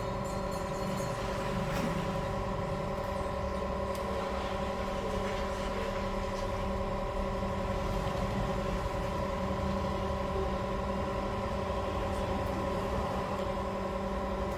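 Small electric motor of an OCA glue-removal tool running steadily, a constant hum made of several fixed tones, with a few faint clicks.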